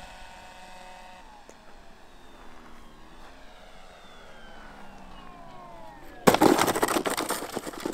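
Electric motor and 12x6 propeller of an X-UAV Talon RC plane whining, several tones sliding down in pitch as it comes in. About six seconds in, a loud rushing noise lasts about a second and a half as the plane comes down on the grass.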